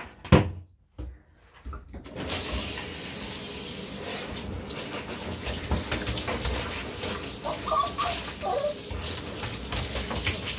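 A sharp knock just after the start, then water turned on about two seconds in and running steadily into a bathtub, a continuous hiss of spray. A few brief higher-pitched squeaks come through the water near the eight-second mark.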